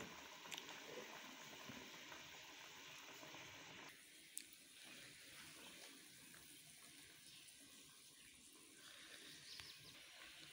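Faint, steady sizzling and bubbling of meat qorma cooking in its masala gravy in a steel pan, with a couple of light clicks.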